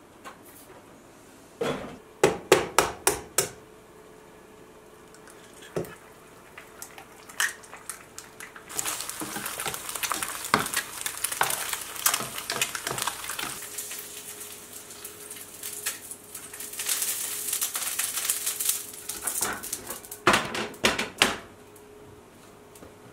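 Eggs frying in oil in a pan: a hissing sizzle that sets in about nine seconds in and lasts about ten seconds. Before and after it come short clatters of kitchenware: a spatula and plate knocking against the pan.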